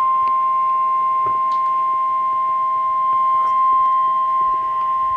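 NOAA Weather Radio warning alarm tone: a single steady high-pitched tone around 1 kHz, held unbroken, with a few faint clicks of radio static. It is the alert signal that comes before a National Weather Service warning message.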